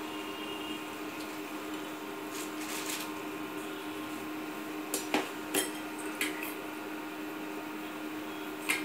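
Hands mixing sliced onions with spices and gram flour in a stainless steel bowl: soft rustling and squishing, with a few light knocks and clinks against the bowl, the sharpest about five seconds in and just before the end.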